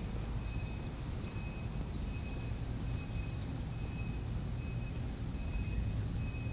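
Steady low rumble of motion and wind noise on a moving camera's microphone, with a faint tick repeating a little faster than once a second. A few faint high chirps come near the end.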